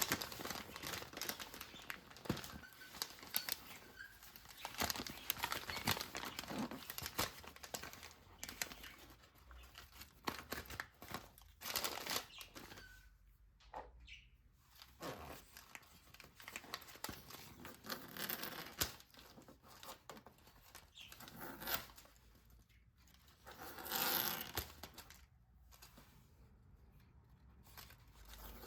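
Packaging being handled close up: irregular rustling and crinkling with short tearing sounds and small clicks, swelling louder several times.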